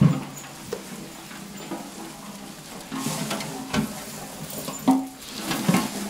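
Armfuls of freshly cut grass rustling as they are grabbed and lifted out of a metal wheelbarrow, with a few sharp knocks.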